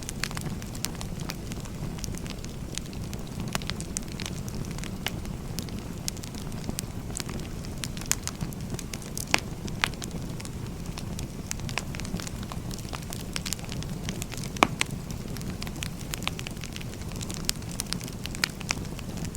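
Firewood burning: a steady low rumble of flames with frequent irregular crackles and sharp pops, the loudest pops about nine and fourteen and a half seconds in.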